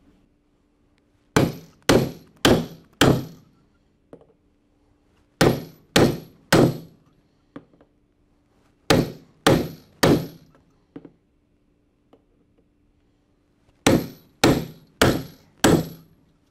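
Hammer blows on a steel bridge removal tool, breaking the bridges between the plates of a Flexco BR rivet belt fastener so the splice can flex in the troughing section. Sharp ringing strikes about two a second come in four quick groups of three or four, with pauses between.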